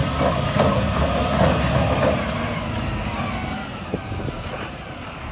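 Volvo A30E articulated dump truck's diesel engine running as it drives past, loudest about a second in and then fading. A thin high whine slides down in pitch as it goes by.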